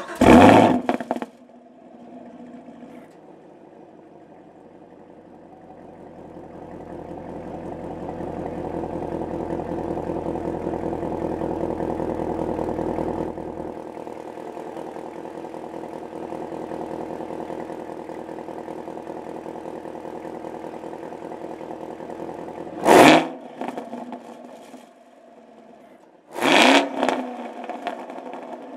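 Chevrolet Camaro 1LE's V8 starting with a loud flare through its quad exhaust tips, then settling into a steady idle that swells louder for several seconds before easing back. Near the end the throttle is blipped twice in short, sharp revs.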